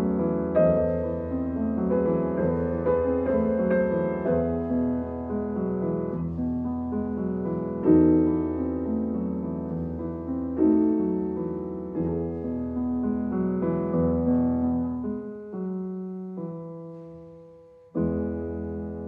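Background music: piano playing slow chords, thinning to a few single notes and then striking a new chord near the end.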